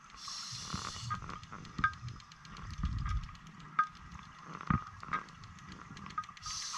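Scuba diver breathing on a regulator underwater: a hiss of inhaled air just after the start and again near the end, with a low bubbling rumble of exhaled air in between, and scattered faint clicks.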